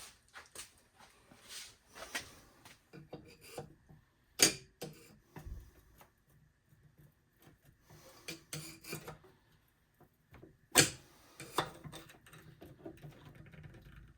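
Hand tool scraping, rubbing and knocking at a stuck part inside a small electric melting furnace, in short irregular scrapes with two sharper knocks, about four seconds in and near eleven seconds. The part does not come free: it is welded in the bottom.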